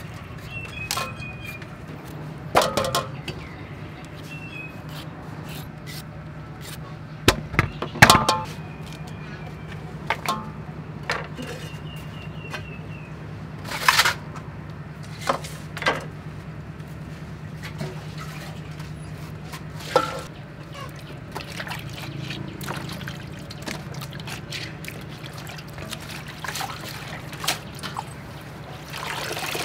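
Kitchen handling sounds: scattered sharp clinks and knocks of aluminium bowls and metal plates moved about on a wooden table. Near the end, water sloshes in an aluminium basin as hands work in it.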